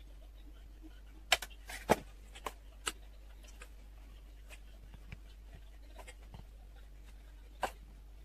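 Metal spoon clinking against stainless steel pot and bowl while scooping buttercream: a handful of sharp clicks, the loudest two in the second second, one more near the end, over a low steady hum.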